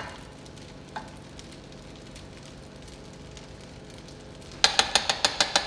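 Meat sizzling steadily in a hot pan. Near the end a metal utensil starts knocking quickly against the pan, about seven sharp ringing knocks a second, louder than the sizzle.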